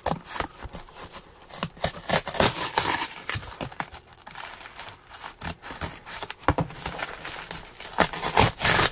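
Scissors slitting the packing tape along the seam of a corrugated cardboard box, an irregular run of scratchy cuts and scrapes, with tape and cardboard tearing and rustling as hands pull it open near the end.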